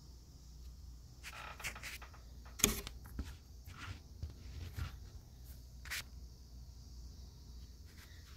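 Handling noises: rustling and several short clicks, the sharpest about two and a half seconds in, over a faint steady hiss.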